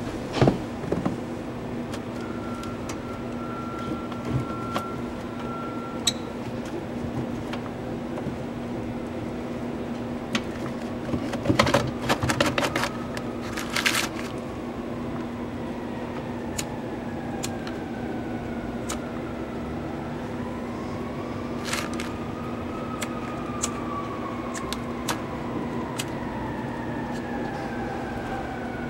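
Sharp clicks and crinkling foil as foil-wrapped food is handled at a small metal box stove, busiest from about 11 to 14 seconds in, over a steady low hum. About halfway through, a distant siren begins, slowly rising and falling in pitch.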